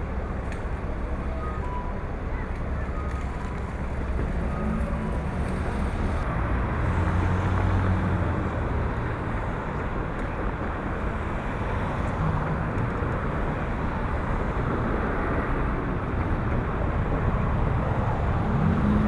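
Steady low engine rumble under a constant wash of noise, growing a little louder about a third of the way in.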